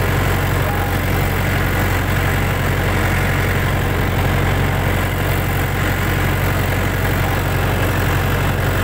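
Farm tractor's diesel engine running at a steady speed, about 1,500 rpm, heard from the driver's seat as the tractor works across a field. The drone is even and unbroken, with no change in pitch.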